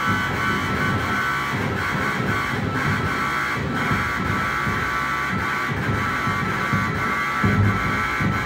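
Light-responsive DIY oscillator synthesizer playing a dense noise texture driven by the projected light: a cluster of steady high tones over a churning low rumble, with a low thud about seven and a half seconds in.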